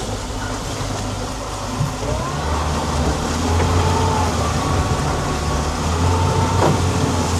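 Outboard motor running under power, a steady low hum that grows stronger about two seconds in as it pushes the boat onto the launcher cradle.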